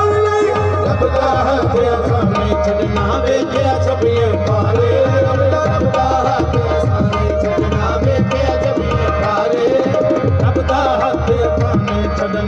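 Qawwali instrumental passage: tabla playing a fast, steady rhythm under sustained harmonium notes.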